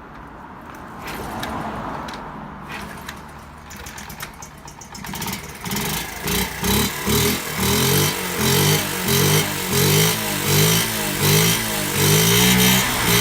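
The 1981 Honda Gorilla's small four-stroke single-cylinder engine catches about five seconds in, after some clicks and clatter, and then runs with the throttle blipped over and over, the pitch rising and falling about one and a half times a second. This is the engine running again after years of neglect, on a newly fitted carburettor.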